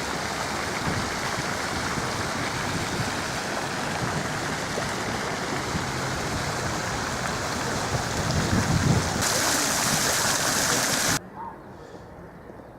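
Fountain water splashing steadily into a pool, growing louder and brighter about nine seconds in, then cutting off suddenly near the end.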